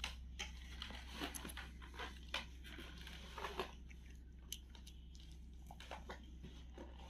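Quiet room with a low steady hum and faint, scattered short clicks and taps, a few every second or two.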